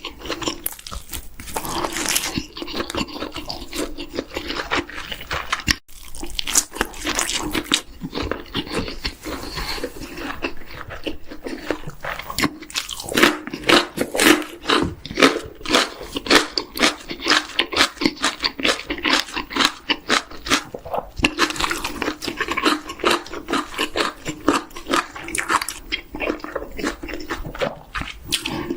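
Close-miked eating of chicken: continuous crunching bites and chewing, many sharp crisp crunches in quick irregular succession, heaviest in the middle and again near the end.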